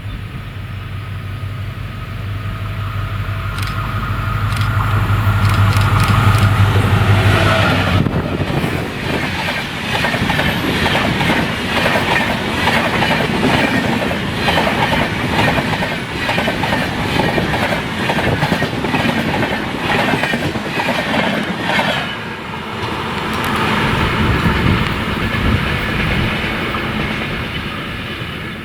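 EMD diesel locomotive approaching with a steady low engine drone that grows louder and passes about eight seconds in. The train's wheels follow, clattering rhythmically over the rail joints until near the end.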